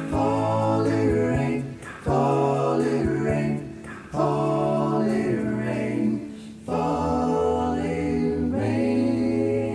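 Vocal group singing a cappella gospel harmony, holding wordless chords of about two seconds each with a bass line underneath, changing chord four times.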